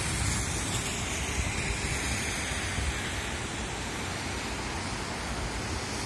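Steady rushing noise of traffic on rain-soaked city streets, with tyres hissing on wet pavement. A car passing swells briefly in the first few seconds.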